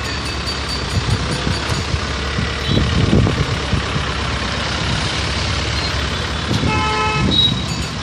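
Steady road-traffic noise, with a vehicle horn sounding once, briefly, near the end.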